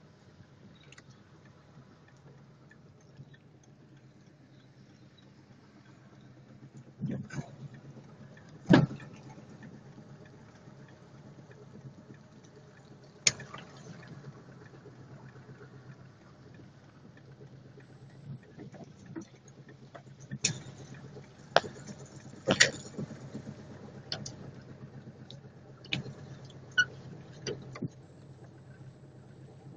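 Inside a car driving slowly through wet, flooded streets: a steady low engine and road hum, broken by about a dozen irregular sharp knocks and bumps. The knocks cluster in the second half, and the loudest comes about nine seconds in.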